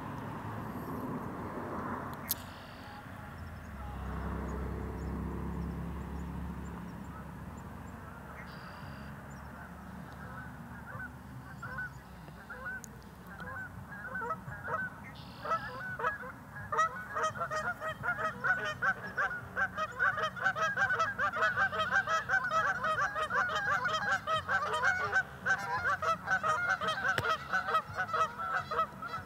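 A flock of geese honking, the calls sparse at first and then from about ten seconds in building into a dense, loud chorus of overlapping honks.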